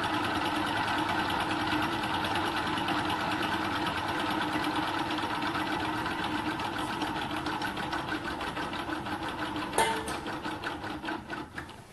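Homemade gamma-type Stirling engine running with a rapid, even mechanical ticking from its crank and linkages. About ten seconds in there is a sharper click, then the beat slows and fades away as the engine runs out of heat and coasts to a stop.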